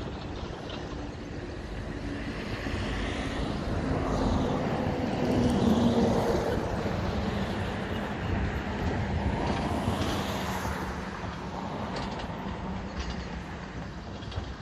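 Heavy diesel engine running, with a low drone that swells to its loudest about six seconds in and then eases off.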